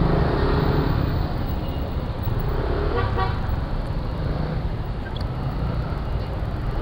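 Steady road and traffic noise from a Yamaha NMAX scooter ride, with a vehicle horn tooting briefly about three seconds in.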